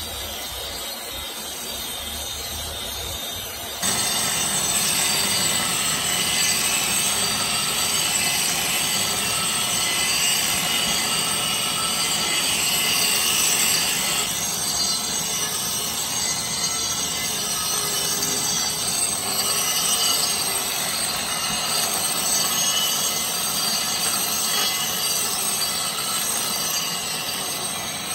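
Concrete grinders running steadily, a harsh grinding noise with a high whine, as diamond discs strip old flaking sealer off a concrete slab. It gets suddenly louder about four seconds in.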